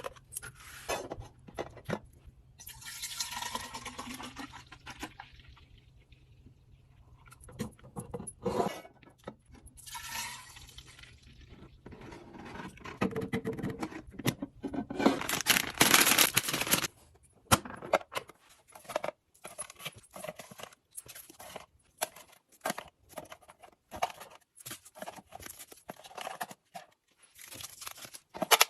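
Restocking items into a fridge: plastic food packaging rustling and crinkling in several longer bursts, amid many sharp clicks, taps and clinks as containers and packs are handled and set down.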